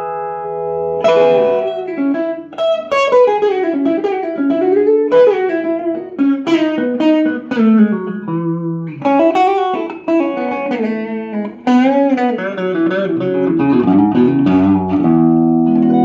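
Telecaster-style electric guitar played through a Bell and Howell AQ2 amplifier converted from a US Army film-projector amp. Picked single-note lead lines with string bends and vibrato, ending on a held, ringing chord.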